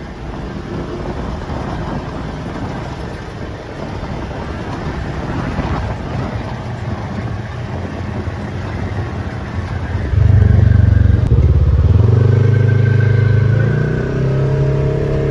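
Off-road vehicle engine running, then about ten seconds in it suddenly gets much louder as it revs, its pitch stepping up twice.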